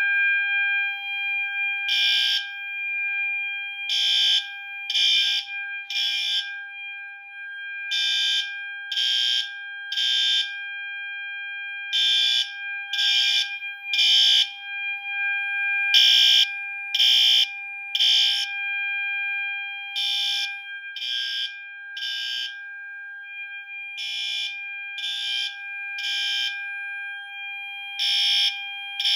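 System Sensor fire alarm horn-strobes in alarm. A steady continuous horn tone runs throughout, and over it a louder horn sounds the temporal-three evacuation pattern: three short blasts about a second apart, repeating every four seconds, starting about two seconds in.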